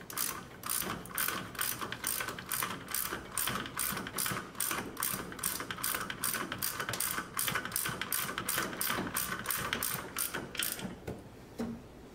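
Ratchet wrench clicking in quick, even strokes, about three clicks a second, as it turns a master cylinder mounting nut on the brake booster; the clicking stops about a second before the end.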